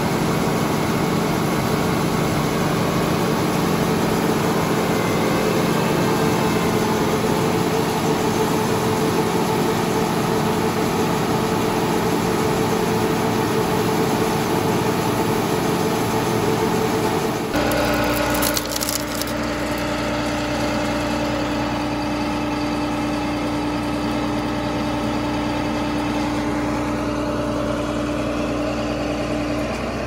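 John Deere 9600 combine running while its unloading auger pours shelled corn into a grain trailer: a steady engine and auger drone with grain rattling. About two-thirds of the way through the sound changes suddenly to a steadier drone with a clear held hum.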